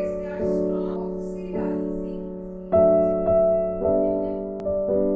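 Background piano music: slow sustained chords, each struck and left to fade, about one a second.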